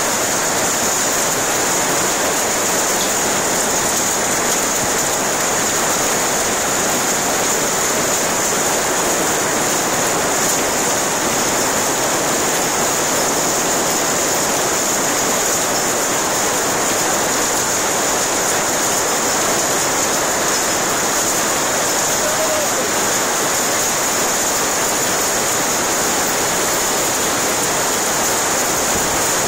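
Hail and heavy rain pelting the plastic roofs of greenhouses, a steady, dense hiss that never lets up.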